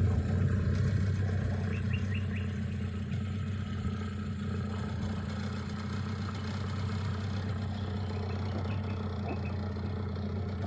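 Dinghy outboard motor running steadily, a low even hum, as it pushes a sailing yacht along while tied alongside it.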